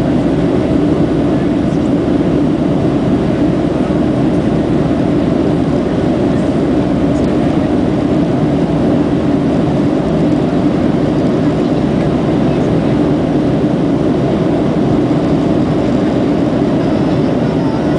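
Airliner cabin noise in the climb after takeoff: engine and airflow making a steady, even low rush with no change.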